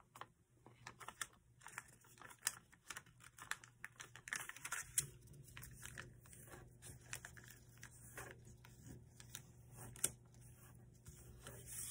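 Paper being handled and folded: faint, irregular crinkles and small crisp ticks as a flap of an origami paper plane is swivelled out and creased.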